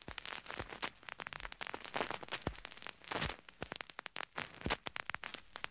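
Faint crackling static: irregular clicks over a low hiss.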